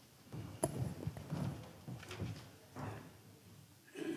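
A congregation sitting down in wooden church pews: shuffling and rustling with scattered knocks, one sharp knock about half a second in.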